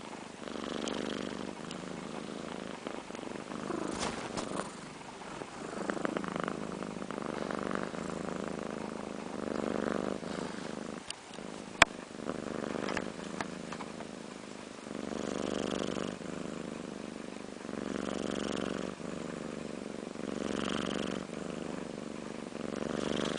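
A sleeping domestic cat snoring: a buzzing rasp on each breath, one about every two and a half to three seconds. A single sharp click sounds about twelve seconds in.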